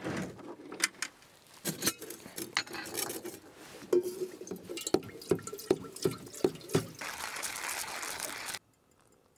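Metal clinks and taps as a stainless kettle is handled at a camp stove for coffee, then a run of regular clicks. Near the end comes about a second and a half of steady rushing, a liquid sound, which cuts off suddenly.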